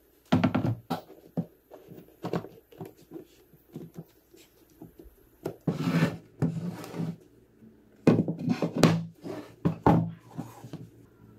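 Chunky pine boards being handled on a workbench: repeated wooden knocks and scrapes as they are set down and slid across the bench top. Louder knocking and scraping comes about six seconds in and again between eight and ten seconds.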